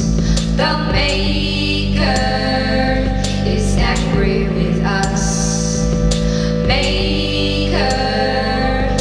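Electronic music played live: held synthesizer chords that change every second or two over a steady low bass, with sharp clicks at regular intervals.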